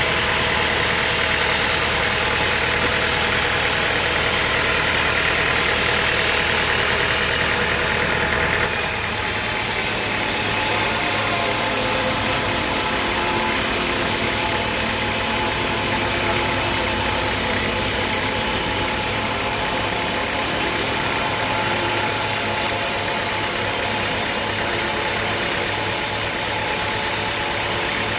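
Sawmill machinery running steadily, with an abrupt change in its sound about nine seconds in.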